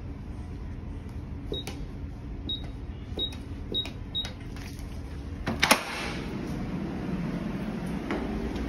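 Electronic push-button door keypad beeping five times as a five-digit PIN is keyed in, one short high beep per button press. About a second and a half after the last beep a loud sharp clack as the door's lock is released and the lever handle turned.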